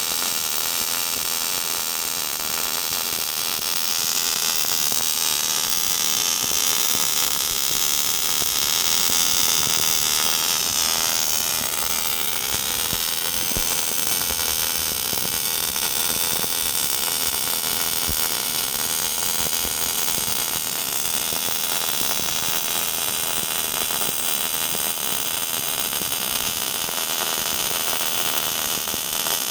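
MIG welding arc hissing steadily, growing louder for several seconds starting about four seconds in.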